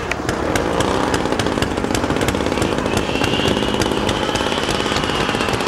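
Radio-controlled model aircraft engine running with a rasping, rapidly pulsing buzz. A faint higher whine swells and falls away in the second half.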